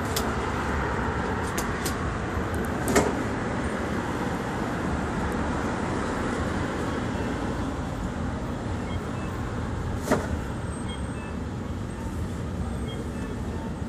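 Steady city street traffic noise, with sharp knocks about three seconds in and again about ten seconds in.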